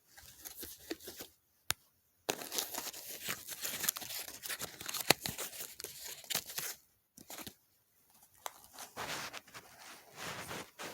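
Irregular crackling, rustling noise with many small clicks in two stretches of several seconds, after a single sharp click about two seconds in.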